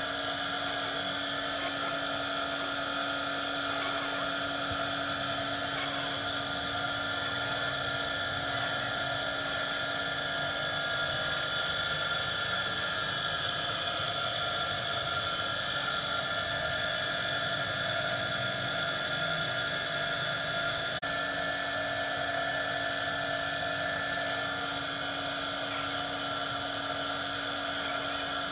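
A steady machine hum with several steady tones held at an even level throughout, like a motor running without pause.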